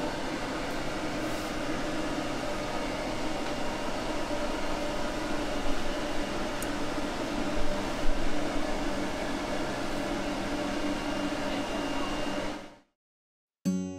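An electric grooming appliance running with a steady motor hum, with a few brief knocks about six and eight seconds in. It cuts off suddenly near the end.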